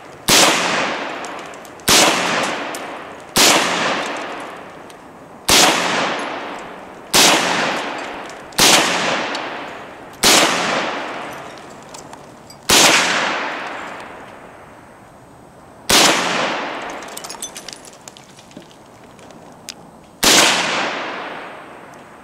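Ten single gunshots fired one at a time, spaced irregularly about one and a half to four seconds apart, each trailing off in a long echo.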